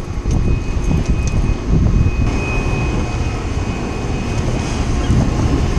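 Steady low rumble of wind buffeting the microphone on an open boat at sea, with a faint steady high whine running through it.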